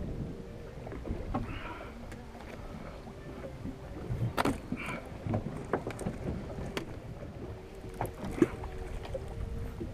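Background sound aboard a small fishing boat at sea: a steady low rumble and water noise, with scattered knocks and clicks and one sharper knock about eight seconds in.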